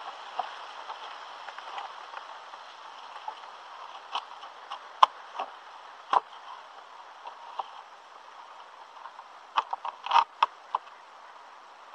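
Bamboo poles of a lashed bamboo raft clicking and knocking as someone steps about on it, with scattered sharp knocks and a quick cluster of them near the end, over a steady hiss.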